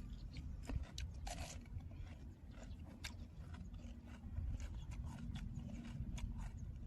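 Eating sounds: chewing with many small, sharp clicks and crunches, over a steady low rumble.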